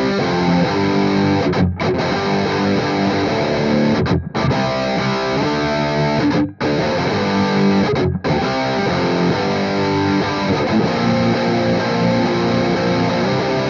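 Distorted electric guitar playing heavy riffs, hitting chords and accents and cutting off into abrupt short stops before starting again, about four stops in all.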